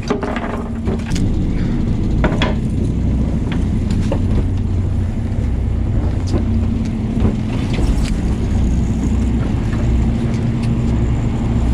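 Fishing boat's engine running with a steady low hum, with a few short clicks and knocks over it.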